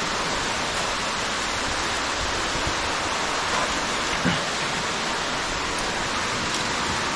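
Steady rush of water from an underground waterfall, an even noise that does not let up.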